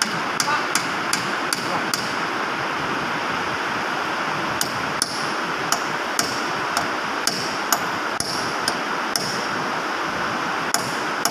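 Hammer tapping on the metal hub of a forklift reach truck's load wheel, short sharp strikes with a metallic ring, about two a second, pausing for a couple of seconds after the first few, then resuming.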